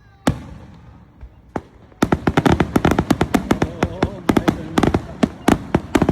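Aerial fireworks exploding: one loud bang, a smaller one, then from about two seconds in a rapid barrage of many sharp bangs, several a second.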